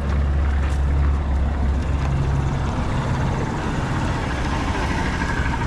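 Large truck's diesel engine idling close by: a loud, steady low rumble.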